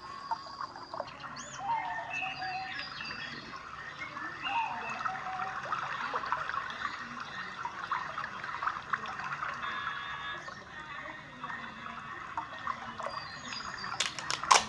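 Water trickling steadily, with a few short chirps and small clicks over it.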